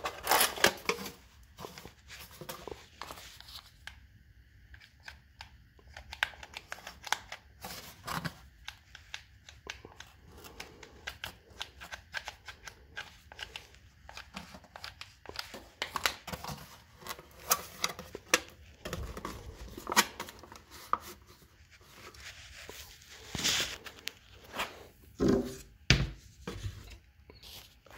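Handling noises as the parts of a homemade tire shelter are moved and fitted together by hand: irregular clicks, knocks and rustling, with a few louder knocks spread through.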